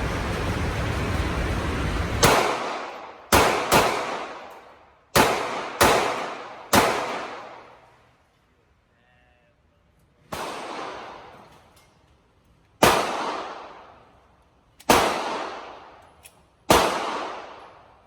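Glock 43 9mm subcompact pistol firing about ten shots at irregular intervals, some in quick pairs, each sharp report ringing out and fading over a second or more. A steady loud rumble fills the first two seconds before the first shot.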